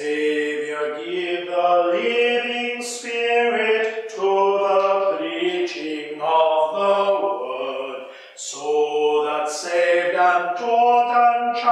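A slow hymn being sung in long held notes, with a short pause for breath between lines about eight seconds in.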